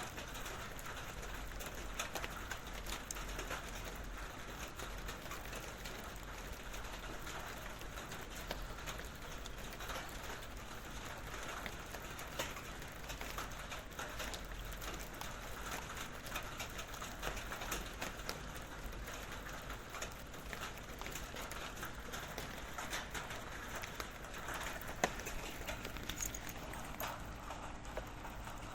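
Rain falling on a metal barrel: a steady, dense patter of drops on the metal with a hollow metallic ring, and one sharper tap about 25 seconds in.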